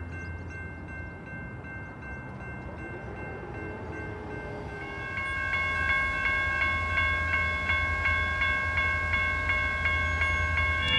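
Railroad crossing bell ringing in rapid, even dings, faint at first and then loud from about five seconds in. The ringing bell is a small box-type crossing bell of unknown make, possibly a Harmon.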